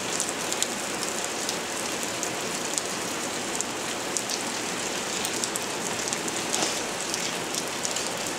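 Steady rain falling on a wooden deck: an even hiss with frequent small spattering ticks of drops.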